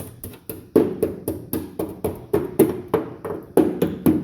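Rapid, steady strikes on metal, about four a second, working at the rusted, dirt-packed crossmember of an M151 military jeep.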